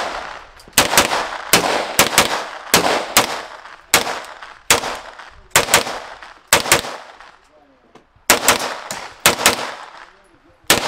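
Short-barrelled AR-style rifle firing a steady string of single semi-automatic shots, roughly one to two a second with a short pause partway through. Each shot has a trailing echo.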